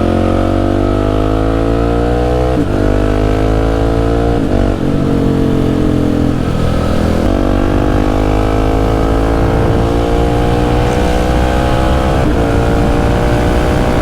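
Husqvarna 701's single-cylinder engine pulling hard under acceleration, heard from on the bike, its pitch climbing steadily in each gear with a brief break at each upshift, four times.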